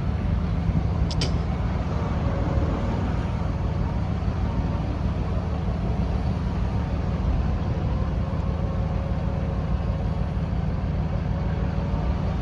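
Vehicle-mounted winch pulling a stuck car out of mud under load: a steady low running drone with a faint whine, and a single sharp click about a second in.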